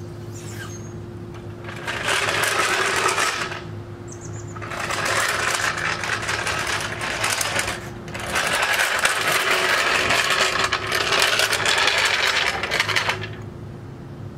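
Red steel floor jack being rolled across pavement, its wheels rattling and clattering in three stretches of a few seconds each.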